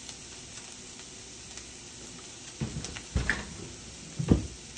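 Dull knocks of a heavy glass baking dish being set down and shifted on an electric stovetop, three of them in the second half, the last the loudest.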